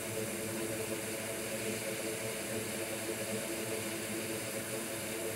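Hot air rework station blowing steadily, a whirring hiss over a low hum, while it heats a small surface-mount resistor to desolder it.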